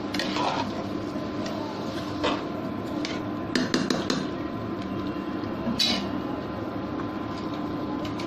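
Steel spoon scraping and knocking against an aluminium pressure cooker while rice and vegetables are stirred: scattered scrapes and clinks, several bunched together in the middle, over a steady faint hum.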